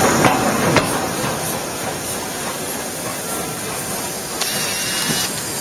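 Steam hissing steadily from GNR N2 tank locomotive No. 1744 standing close by, with a couple of light clanks in the first second and a brighter, higher hiss for about a second near the end.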